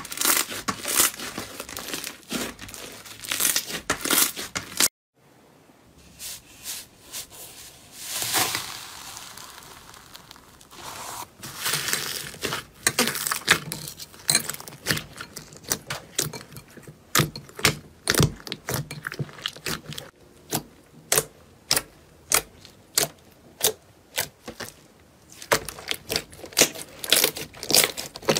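Hands squeezing and pressing slime: foam-bead slime crackling for the first few seconds, then after a short pause blue slime kneaded with squelches and a run of sharp pops and clicks from trapped air.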